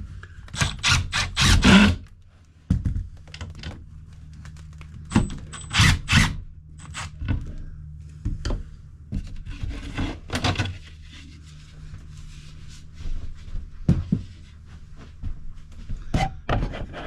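Irregular knocks, clicks and scrapes of a trailer's interior panel being unscrewed and worked loose, the loudest clusters in the first two seconds and around six seconds in, over a low steady hum.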